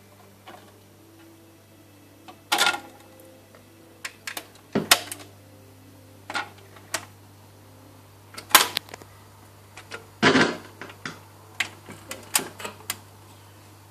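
BSR Monarch record changer on a 1965 Marconiphone radiogram going through its change cycle: a string of irregular mechanical clicks and clunks as the control is worked, the 7-inch single drops onto the platter and the tonearm swings over. A steady low hum runs underneath.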